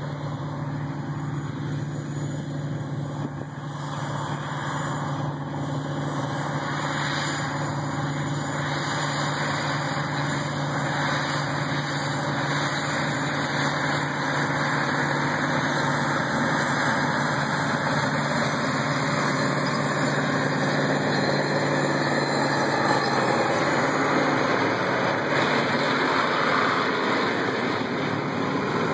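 John Deere four-wheel-drive tractor's 15.7-litre turbocharged eight-cylinder diesel running steadily under load as it pulls a field cultivator, growing louder as it approaches.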